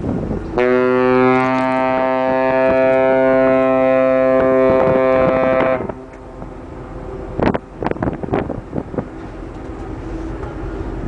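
Ship's horn sounding one long blast of about five seconds, a deep chord of several steady tones that starts about half a second in and cuts off. Wind noise and a few knocks follow.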